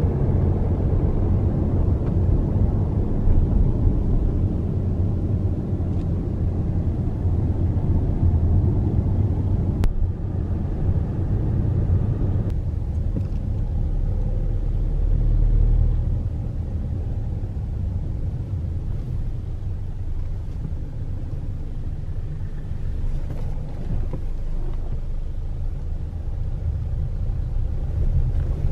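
Car driving, heard from inside its cabin: a steady low rumble of engine and road noise that swells briefly about halfway through.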